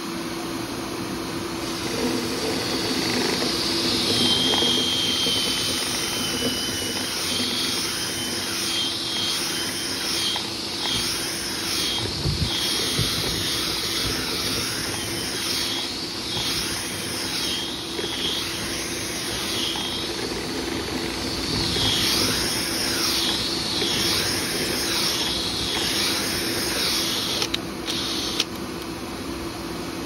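Dryer vent cleaning vacuum running steadily, with a rushing air noise over a constant hum. A thin whistle wavers above it for a while, and the air noise swells and fades in a repeating pattern.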